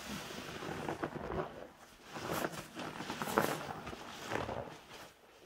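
Gloved hands squeezing soaked grout sponges in a tub of thick suds: wet, crunchy squelching of foam and sponge, in a few squeezes.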